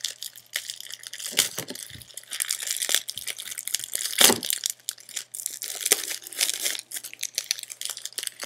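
Clear plastic shrink wrap crinkling and tearing as it is slit with a knife and pulled off a box by hand, an irregular crackle with a few sharper cracks.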